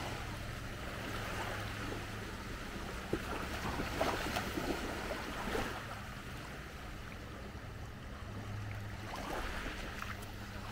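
Small waves lapping at the shoreline: an even wash of water noise with a few faint splashes and a low steady rumble underneath.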